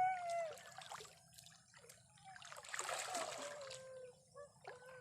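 Water splashing and sloshing in shallow flood water, with a drawn-out wavering cry at the start and a second, falling one from about three seconds in.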